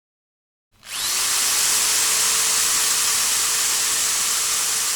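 Homemade drill made from a table fan motor with a drill chuck, starting about a second in and spinning up to a steady hum with a loud hiss as it bores into wood.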